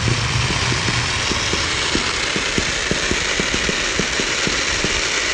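Fireworks fountains shooting crossing sprays of sparks: a steady, loud hiss with a quick, irregular run of low pops and crackles.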